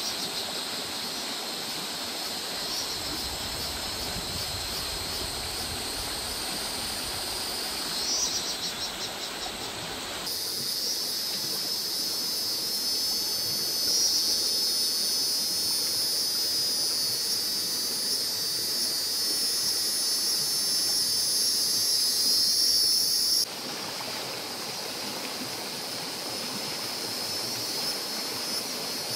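Steady riverside ambience: flowing river water with a high, continuous insect drone over it. About a third of the way in the insect drone becomes much louder and the water fainter, then it cuts back abruptly later on.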